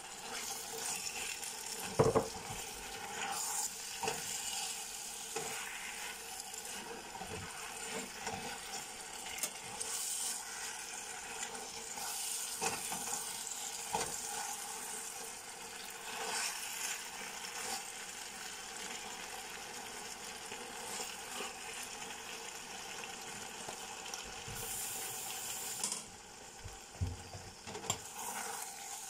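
Beef and vegetable stir-fry sizzling in its just-added sauce in a honeycomb-textured stainless frying pan, stirred and scraped with a spatula, with scattered knocks against the pan. The loudest knock comes about two seconds in, and the sizzle drops a little near the end.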